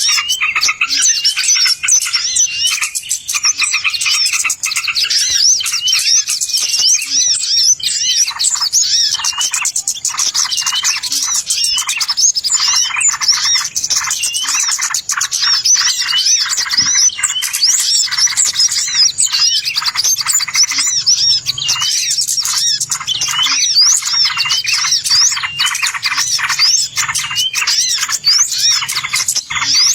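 A dense chorus of many small songbirds chirping and trilling rapidly and without pause, a bird-lure (pikat) recording made to call in wild birds.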